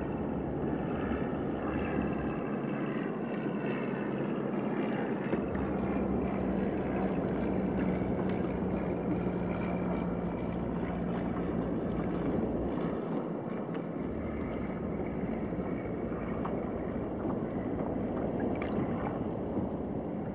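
Steady wind and water noise at sea around a kayak: wind on the microphone and small waves lapping at the hull. A faint steady hum runs through the middle for several seconds.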